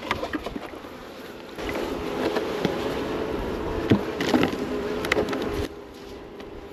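Honey bees buzzing around an opened hive, a steady hum, with scattered clicks of hive handling. A louder rustling noise runs from about one and a half seconds in until just before the end.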